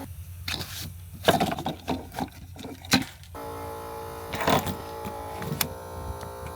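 An engine running with a low rumble, with several sharp knocks and clatters in the first half and a few more later.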